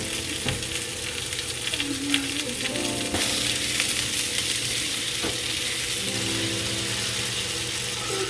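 Food sizzling as it fries in a pan, a steady hiss with a few sharp clicks.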